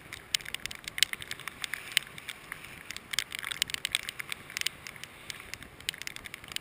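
Raindrops hitting the camera housing: a dense run of irregular sharp ticks.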